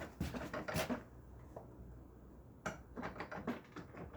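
Scattered light knocks and clicks of handling in a small room, in two clusters: one within the first second and another about three seconds in. No bell rings.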